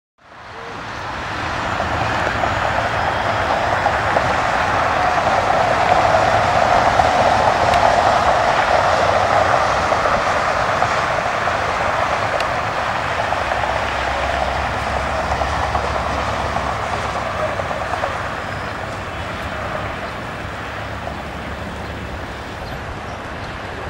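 Distant jet airliner engines roaring: a steady rumbling roar that swells to a peak several seconds in and then slowly fades.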